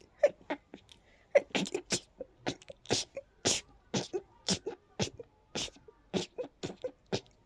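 A person's rapid, stifled sneezes in a fast unbroken run, about three to four short bursts a second, with a brief pause about a second in.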